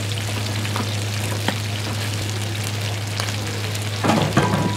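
Shengjian bao (pan-fried buns) frying in oil and water in a wide black pan: a steady sizzling hiss with scattered small pops over a low hum. There is a louder burst of sizzle about four seconds in.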